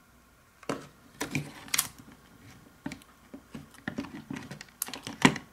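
Sharp, irregular plastic clicks and knocks as a circuit board is lifted out of a carbon monoxide detector's plastic housing and handled, starting about a second in, with the loudest knock near the end.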